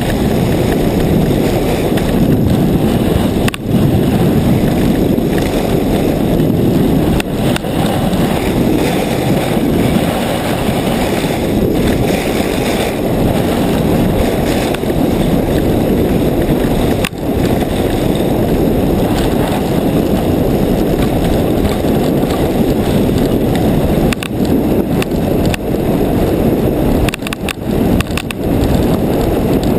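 A ski cart sliding down packed snow: steady hiss and scrape of its runners under a continuous rush of wind on the microphone, with the noise dipping briefly a few times.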